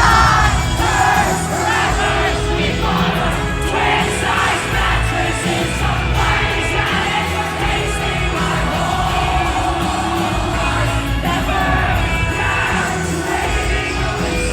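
Live band playing loud music with a lead singer, the crowd singing along and yelling and whooping; it cuts off abruptly at the end.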